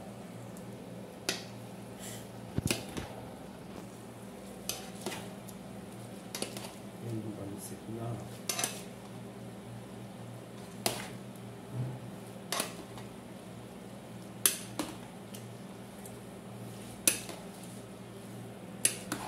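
Metal utensil clinking and scraping against a large aluminium pot as noodles and vegetables are tossed and mixed, with a sharp clank every second or two over a steady low hum.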